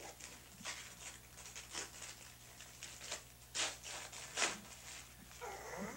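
Wrapping paper crinkling and tearing in short bursts as a toddler pulls a present open, the two loudest rips about three and a half and four and a half seconds in.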